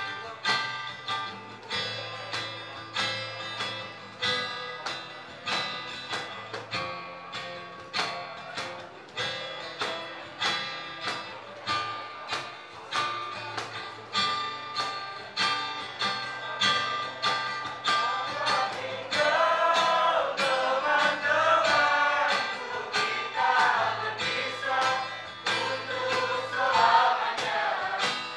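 Acoustic guitar strummed in a steady, even rhythm, accompanying a small group of young voices singing together; the singing becomes much stronger over the last third.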